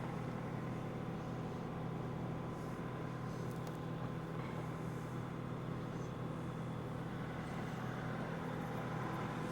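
Excavator's diesel engine running at a steady speed, a constant low drone with no revving.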